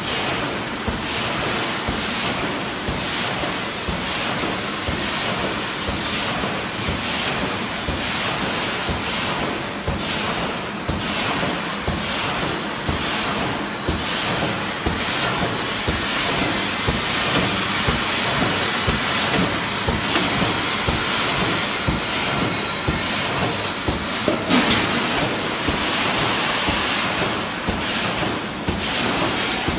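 High-speed wire mesh welding machine running in production: a steady, dense clatter of rapid mechanical strokes over a constant noise, with one sharper knock late on.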